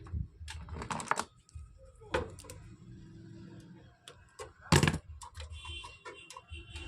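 Scattered clicks and small knocks from hands handling the amplifier's mains input wires and board while joining them, with one louder knock about two-thirds through.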